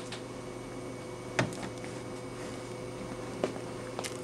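Hardbound book being handled and slid back onto a bookshelf: one sharp knock about a second and a half in, then a couple of lighter clicks near the end, over a steady low hum.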